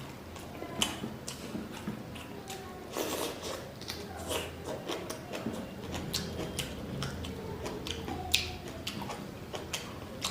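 Close-up mukbang eating sounds: a person chewing and biting food, with irregular crisp clicks and smacks. The sharpest clicks come about a second in and again near the end.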